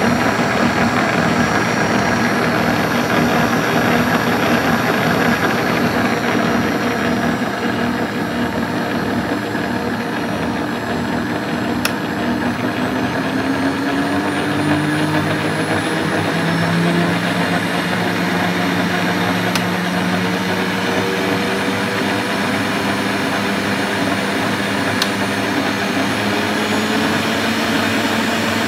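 Khind SM500P stand mixer's motor running, a steady whir that steps up in pitch as the speed dial is turned up from speed 1 through speed 4, with the main rise about halfway through.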